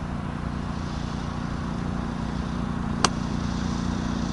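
Steady mechanical hum from a running motor or machine, with one sharp click about three seconds in.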